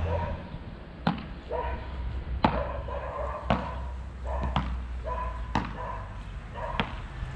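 Beach tennis paddles striking the ball back and forth in a rally: six sharp pops, about a second apart.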